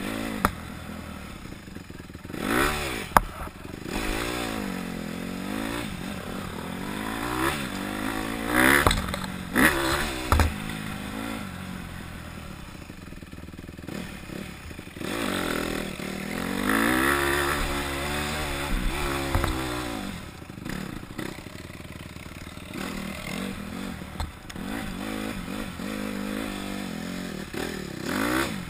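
Honda CRF150R dirt bike's single-cylinder four-stroke engine revving up and down over and over as it is ridden, with a long pull from about halfway through. There are occasional knocks and clatter over rough ground.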